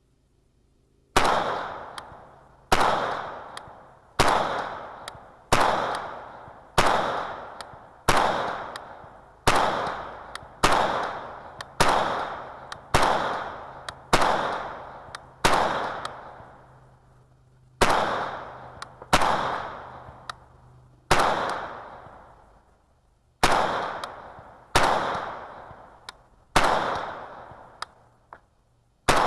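AMD-63 AK-pattern rifle in 7.62×39 firing slow, steady single shots, about one every 1.2 seconds, each followed by a fading echo. There is a longer pause about two-thirds of the way through before the shots resume.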